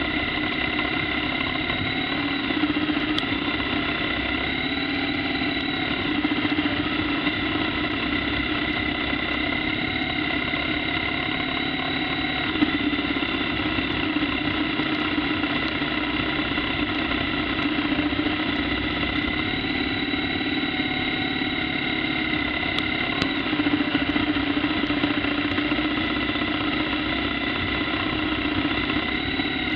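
BMW R1200GS Adventure's boxer-twin engine running steadily at cruising speed, with a steady drone of riding noise.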